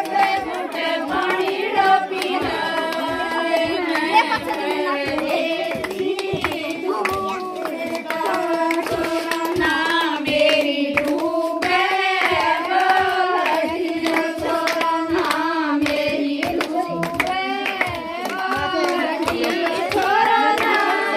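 Group of women singing a Haryanvi folk song (jachcha geet) together, with steady rhythmic hand-clapping keeping the beat.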